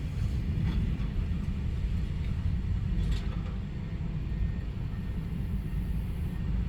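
Heavy diesel construction machinery at an excavation site running with a steady low rumble, with two faint clanks, about a second in and about three seconds in.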